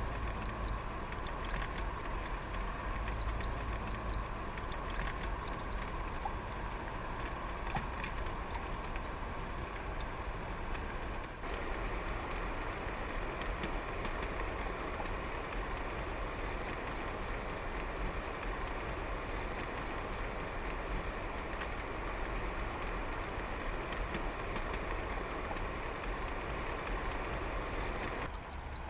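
Male zitting cisticola giving its dry 'chat-chat' call, a run of quick, sharp high clicks that are densest in the first several seconds and sparser later, over the steady hiss of rain.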